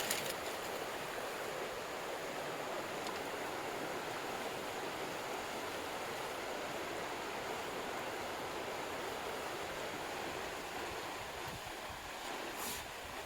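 Mountain stream flowing, a steady rushing of water.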